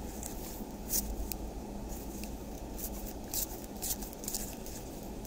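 Trading cards being slid and flipped through by hand: a handful of short, soft card-on-card clicks and rustles over a steady low hum.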